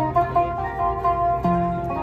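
Qanun, the Arabic plucked zither, playing a quick melody of ringing plucked notes over a low held bass tone.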